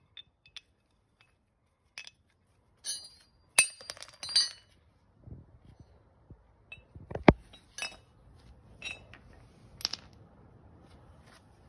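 A hammer strikes a socket held against the pillow ball bearing in an aluminium strut top mount, driving the bearing out: scattered sharp metallic clinks and ringing taps, with a cluster of blows a few seconds in and the hardest strike about seven seconds in.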